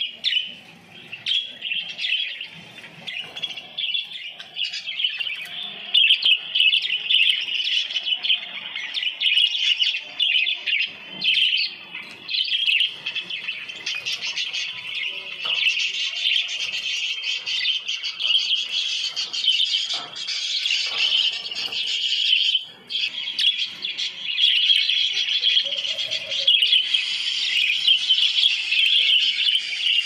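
Budgerigars chattering and warbling without a break, a dense stream of high chirps.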